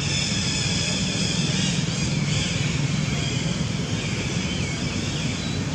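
Steady low outdoor rumble with faint high-pitched chirping calls over it.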